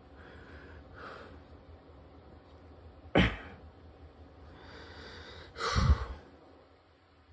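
A person breathing, with two sharp bursts of breath about two and a half seconds apart, the second following a longer drawn-in breath.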